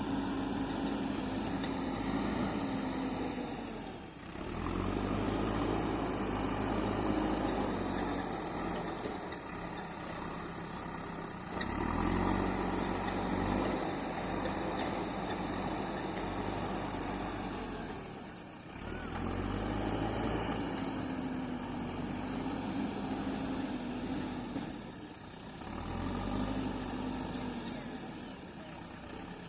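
JCB 3DX backhoe loader's diesel engine working under load, its revs rising and falling in repeating cycles about every seven seconds as the machine works the hydraulics.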